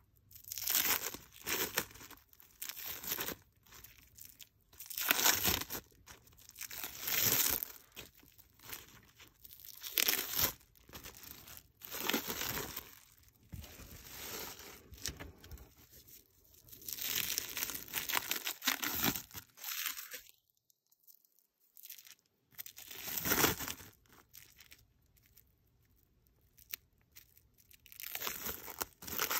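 Clinging plastic wrap crinkling and tearing as it is pulled off silicone resin molds. It comes in irregular bursts, broken by a couple of seconds of silence a little past the middle and a quieter stretch before it picks up again near the end.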